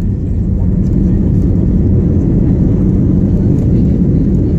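Steady low rumble of an airliner's engines and rushing air, heard inside the passenger cabin on the descent to land.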